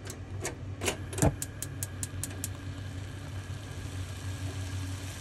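Gas stove burner's igniter clicking rapidly, about ten sharp ticks that quicken before stopping, with a low thump about a second in, as the burner relights after its overheat safety sensor had cut the flame. A steady low hum runs underneath.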